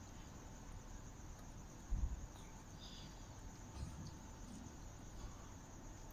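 Crickets chirping steadily in a high, continuous trill, with a brief low thump about two seconds in.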